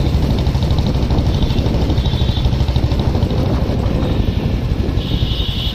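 Wind buffeting the phone's microphone while riding a motorcycle, over the steady running of its engine.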